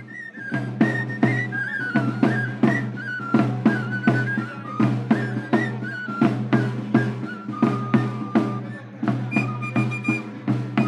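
Traditional Extremaduran pipe and tabor music: a three-hole pipe (gaita or flauta) plays a high, stepping melody over steady tamboril drum beats, about two or three a second.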